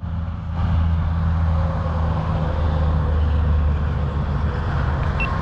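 A steady low engine rumble, unchanging in pitch, with a faint steady whine above it.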